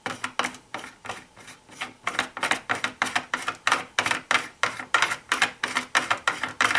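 Steel RCBS full-length resizing die being screwed down by hand into the threaded head of a single-stage reloading press: a rapid, even run of short metal clicks and scrapes, about four a second, as the threads turn. The die is being run down to touch the shell holder on the raised ram.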